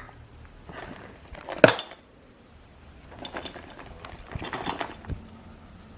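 A small plastic fidget toy filled with slime and foam being shaken and handled: scattered light clicks and rattles, with one sharper click a little under two seconds in.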